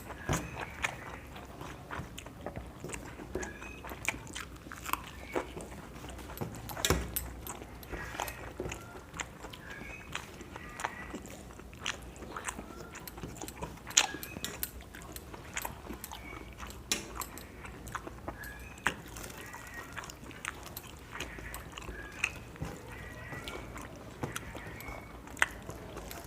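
People eating a meal: chewing, with scattered sharp clicks and taps against plates, a louder knock about seven seconds in and another about fourteen seconds in.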